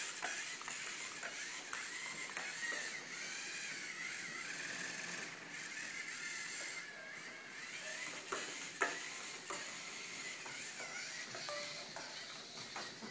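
LEGO Mindstorms NXT robot's servo motors and gear trains whining as it drives, the pitch wavering up and down as the motors speed up and slow down, with a few sharp clicks, the loudest about nine seconds in.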